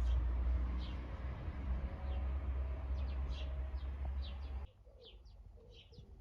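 Small birds chirping outdoors in short, quickly falling calls, over a steady low rumble that cuts off suddenly about two-thirds of the way in. After the cut, a dove coos softly among the chirps.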